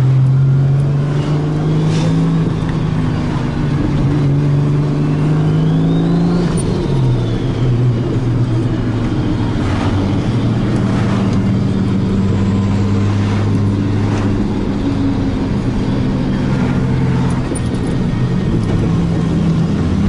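Turbocharged car engine under way, heard from inside the car: it pulls with its pitch slowly rising, drops in pitch about six seconds in, then runs at a steady cruise. A faint high whistle rises and falls with the pull.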